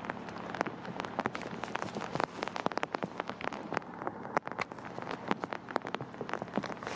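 Steady rain falling, with a dense, irregular patter of sharp individual drop ticks close by.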